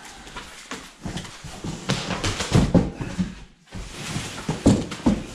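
Cardboard box flaps and the plastic wrap over a kart chassis being handled: rustling and crinkling with a few knocks, busiest about two seconds in and again near the end.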